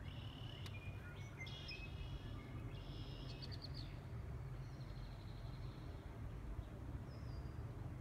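Wild birds chirping and calling, busiest in the first half with a quick run of repeated notes, and a short falling call near the end, over a steady low rumble of wind on the microphone.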